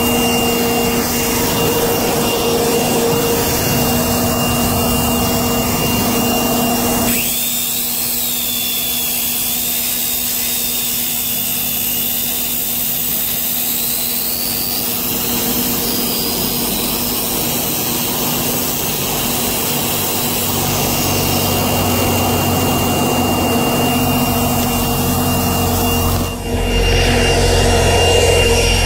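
Corded circular saw with a diamond blade grinding through asphalt in a long, steady cut, its motor whine running over a continuous machine drone. About 26 seconds in, the sound dips briefly, then comes back with a deeper rumble.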